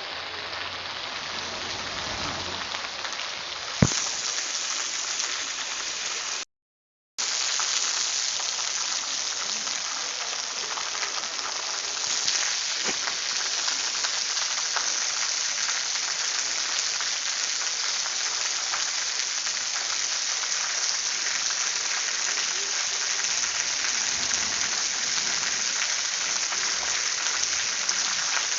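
Steady rain falling, a dense even hiss of drops. There is one sharp click about four seconds in, and the sound cuts out completely for under a second around seven seconds in.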